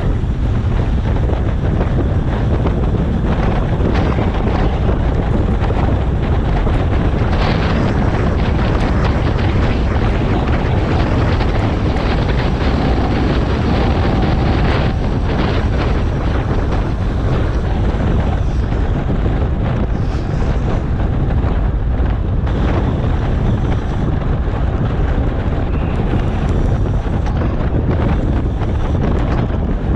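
Wind buffeting a GoPro Hero7 action camera's microphone while riding a bicycle at speed: a loud, steady rush that is heaviest in the low end.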